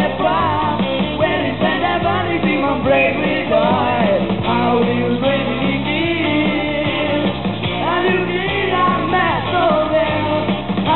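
Live rock band playing: a male lead singer over drums, bass guitar and guitar. The recording cuts off everything above about 4 kHz, so it sounds dull with no top end.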